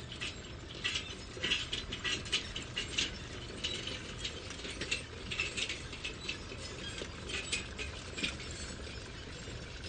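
Irregular light clicks and taps of metal tools being worked, over a low steady rumble of a construction background; the clicking thins out near the end.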